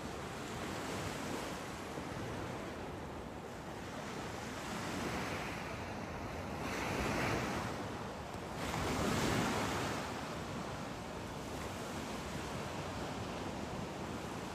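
Sea waves breaking and washing, the noise swelling in several surges, loudest around seven and nine seconds in, with some wind on the microphone.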